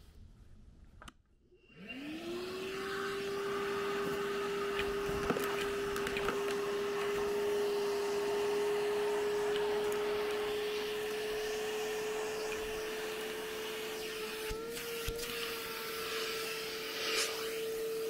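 Milwaukee M12 Fuel cordless wet/dry vacuum switched on about a second and a half in, its brushless motor spinning up with a rising whine and then running steadily. Scattered clicks and rattles as small rocks are sucked up the hose, and the pitch steps up slightly near the end.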